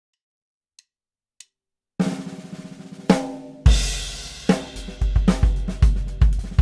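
Jenkins-Martin Blaemire Series acoustic drum kit being played. Two faint clicks come first. About two seconds in, a fast roll of ringing drum strokes starts, followed by a ringing tom hit and a loud bass drum hit with a cymbal wash. The kit then settles into a beat of bass drum and snare strokes.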